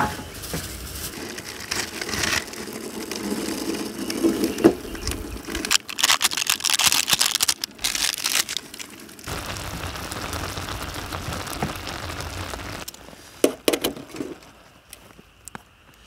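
Camp cooking over a small wood-burning stove: crackling and handling noises, then a stretch of hissing boil as instant ramen noodles go into the pot of water, and a few sharp clicks about three-quarters of the way through.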